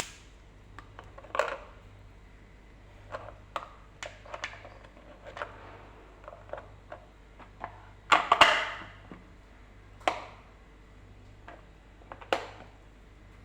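Scattered light knocks and clicks of kitchen utensils being handled, with a louder clatter about eight seconds in, over a faint steady hum.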